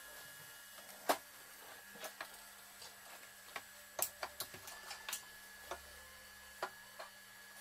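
Scattered light clicks and taps of a projector lens, a small cleaning bottle and tools being picked up and set down on a workbench, the loudest click about a second in and a cluster around four to five seconds in, over a faint steady hum.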